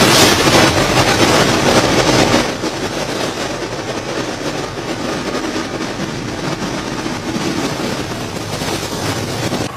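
Strong storm wind and heavy rain, a steady rushing noise buffeting the phone's microphone, louder for the first two seconds or so and then easing a little.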